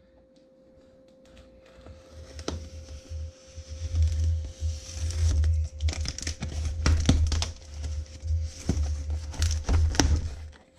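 Cardboard shipping box being cut and torn open with a folding pocket knife: packing tape slit and flaps pulled apart, with crinkling, tearing and sharp clicks over low rumbling thuds, starting after a quiet second or two. A faint steady hum runs underneath.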